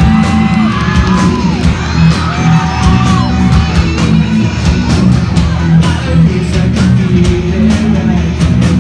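Rock band playing live: electric guitars, bass guitar and drum kit, with long bending guitar or vocal notes in the first few seconds, steady drum hits and vocals.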